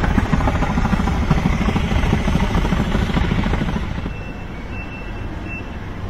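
Gas burner flame in an industrial furnace burning with a loud, rough rumble, then dropping to a lower, steadier hum about four seconds in.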